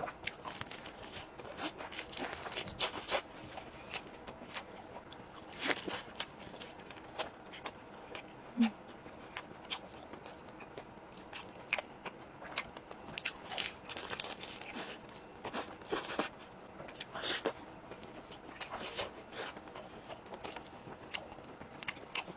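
Close-miked eating of crispy-skinned fried chicken: irregular crunchy bites and chewing, with sharp crackles of the crisp skin.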